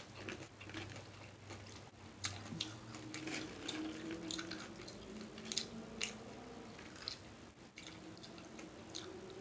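Wet mouth sounds of someone eating shrimp salad: soft chewing with scattered lip smacks and clicks.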